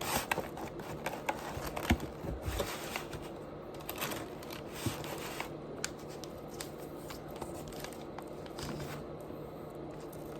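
Paper and plastic takeout food packaging being handled: crinkling, rustling and some tearing, with many small sharp clicks, busiest in the first half.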